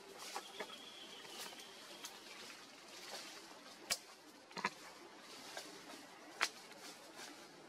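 Faint outdoor ambience among trees, with a thin high whistle early on and three sharp clicks or snaps in the second half, the second of them about four seconds in.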